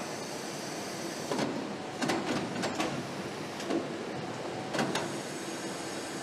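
Automated valve-seat machine on a cylinder-head line running with a steady hum, broken by several short mechanical clicks and clunks and a faint high whine at the start and again near the end.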